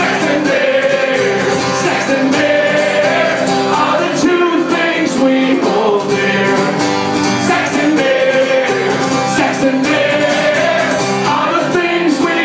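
Live song: singing over a strummed acoustic guitar, with long held sung notes.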